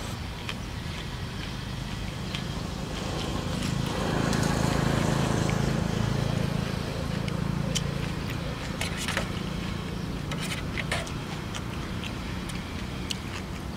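Eating sounds: noodles slurped and a spoon clicking and scraping against a metal tray, in short sharp clicks that come thickest after the middle. Under them a low engine hum swells for a few seconds around the middle and fades, like a motor vehicle passing.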